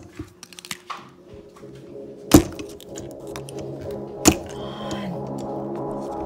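Pliers clamped on a plastic Star Wars Kyber Crystal container, with scattered small clicks and two loud sharp snaps, one about two seconds in and one about four seconds in, over background music.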